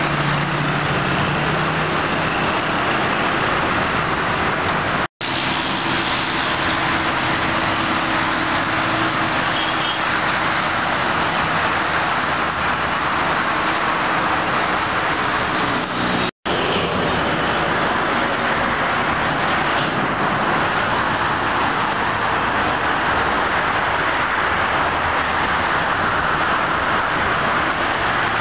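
Steady traffic noise from cars and trucks passing on a multi-lane expressway below. The sound cuts out abruptly for an instant twice, about five and sixteen seconds in.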